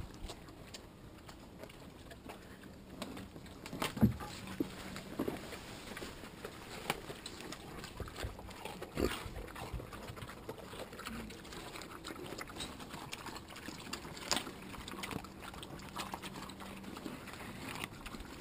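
Mangalica pigs eating watermelon pieces off the ground: wet chewing and smacking, with irregular crunches and snuffles. The two loudest crunches come about four seconds in and again near fourteen seconds.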